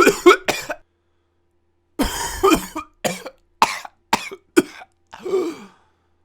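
A person coughing: a few quick coughs right at the start, then after a pause a run of about five coughs, ending in a longer hoarse sound that falls in pitch. The clips are separated by dead silence.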